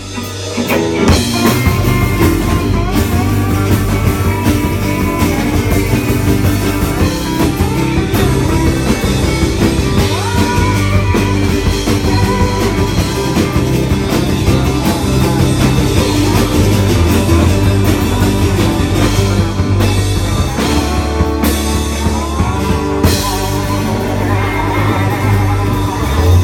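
Live country-rock band playing an instrumental passage on guitar, bass and drums, with no lead vocal, after a brief drop right at the start.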